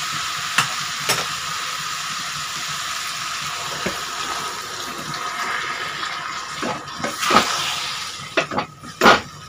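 Jackfruit curry masala sizzling steadily in a hot metal kadhai as water is poured in from a bottle, with the metal spatula knocking and scraping against the pan. The knocks come thicker and louder over the last few seconds as it is stirred.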